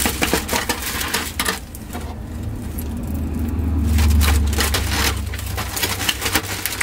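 Small cosmetic containers and packaging clicking and clattering as they are handled, with a low rumble that swells about halfway through.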